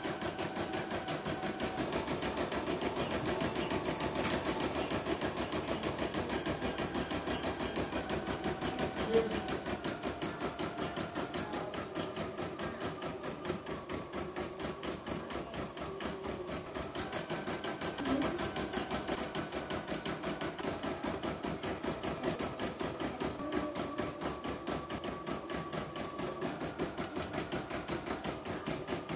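CNY E960 computerised embroidery machine stitching a design, its needle running in a fast, even clatter, with one sharper click about nine seconds in. The machine is running smoothly after loose internal cables were reseated and clamped, which cured its hoop shifting out of register.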